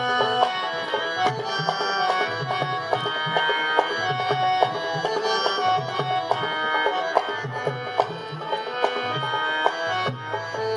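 Instrumental interlude of a Haryanvi ragni: a harmonium holds sustained reedy chords while a hand drum plays a quick, steady rhythm of strokes.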